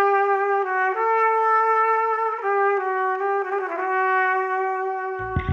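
Music: a slow melody of long held notes, changing pitch every second or so, with a deep low sound coming in near the end.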